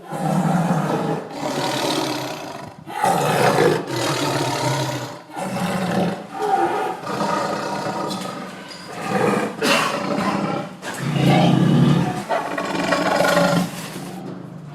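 Angry tiger roaring and snarling, about ten rough roars one after another with short breaks between them.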